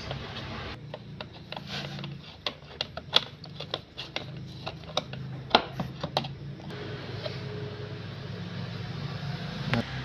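Screwdriver working a screw on a fridge's plastic evaporator fan shroud and fan motor mount: irregular sharp clicks and ticks of metal on plastic for several seconds. A steady low hum runs underneath.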